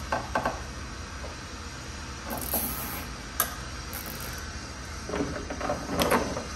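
Plastic zip tie and wiring handled by hand: scattered small clicks and rustling as the tie is worked around the wire bundle, busiest near the end.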